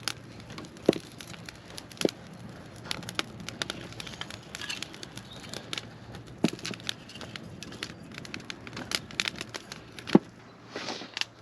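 Newly lit campfire crackling: irregular sharp snaps of burning dry wood, a few louder cracks standing out about a second in, two seconds in and near the end.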